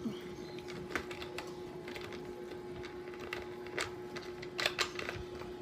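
A few light, scattered clicks and taps over a steady low hum, with a small cluster of clicks near the end.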